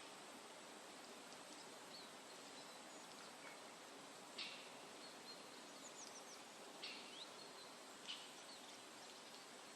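Faint woodland ambience with a steady soft hiss, and a few short, high bird chirps scattered through it, three clearer ones in the second half.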